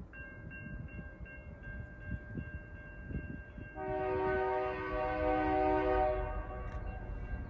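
Diesel locomotive air horn sounding one long blast of about two and a half seconds, starting about halfway through. Underneath, a steady repeating ring, like a grade-crossing bell, runs throughout.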